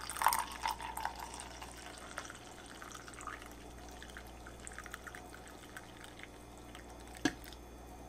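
Hot coffee pouring from a glass coffee-maker carafe into a ceramic mug, a splashing trickle that is busiest in the first few seconds and then thins out. A single sharp click sounds near the end.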